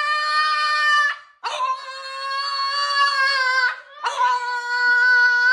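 A dog howling in long, steady, held notes: one ends about a second in, a second lasts a little over two seconds, and a third begins near the end.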